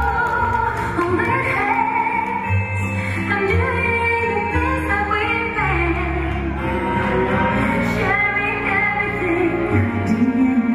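Music for ballroom dancing, played over the hall: a sung melody over a steady bass line.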